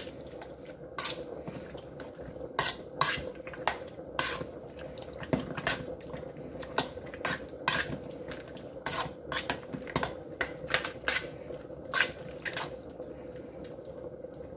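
A utensil clinking and scraping against a bowl in irregular knocks while sliced chicken is stirred into mushroom soup, over a faint steady hum.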